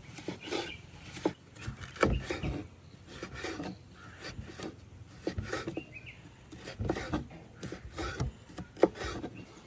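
A run of irregular scrapes and knocks, two or three a second, like hand work on a hard surface.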